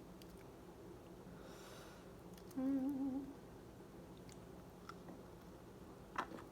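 A woman hums once with her mouth closed, a short wavering 'mmm' lasting under a second, about two and a half seconds in. Under it runs a faint steady room hum, with a few soft clicks of eating near the end.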